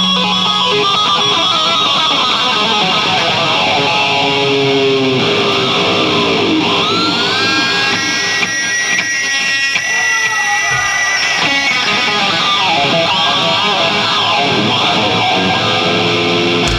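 Live metal band playing with distorted electric guitars, bass and drums and no vocals. In the middle a lead guitar plays bending, sliding notes and holds a high note for a few seconds.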